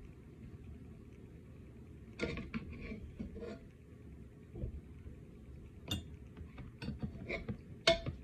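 Metal spoon clinking and scraping against a rice container while scooping cooked rice: scattered light knocks and clatter, a cluster about two seconds in and several more in the last two seconds, the sharpest just before the end.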